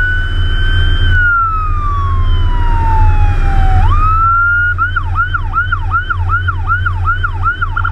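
Fire truck's electronic siren heard from inside the cab: a slow wail that rises, falls and rises again, switching about five seconds in to a fast yelp of about three sweeps a second, and near the end to a very rapid warble. A steady low drone of the truck's engine runs underneath.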